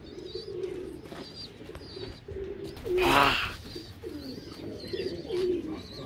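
Domestic pigeons cooing over and over, with short high chirps recurring, and one loud short call about three seconds in.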